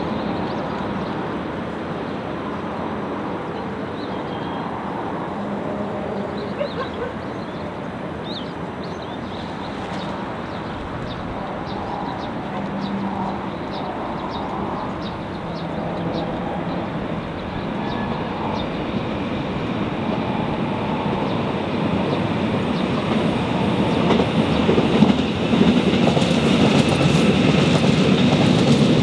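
Seoul Subway Line 4 electric commuter train running on the line, its wheels clattering over the rail joints. It grows louder over the last few seconds as it draws closer.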